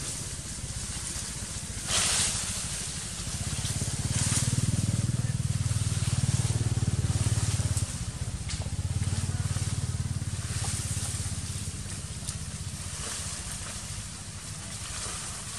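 A motorcycle engine running nearby, a low pulsing rumble that swells about four seconds in and drops away sharply about halfway through. A few short crunches sound over it, fitting a small monkey biting watermelon rind.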